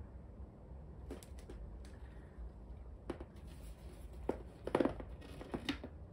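A large picture frame being handled and set down on a wooden floor: a few light knocks and scrapes, with the loudest cluster of knocks a little before the end.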